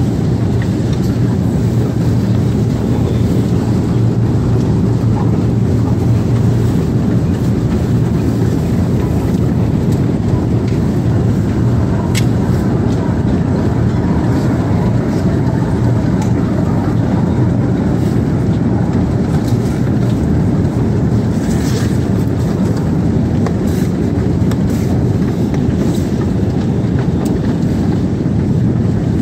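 Escalator running: a steady low mechanical hum and rumble with no change in pace, and an occasional faint click.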